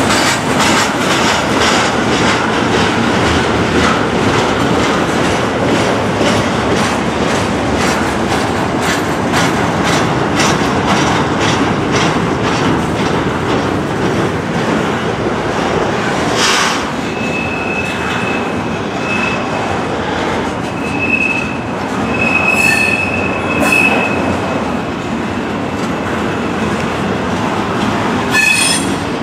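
Double-stack intermodal freight cars rolling past: steady wheel-on-rail noise with a regular clickety-clack over the rail joints. In the second half a high wheel squeal comes and goes, and a few sharp metallic clanks ring out.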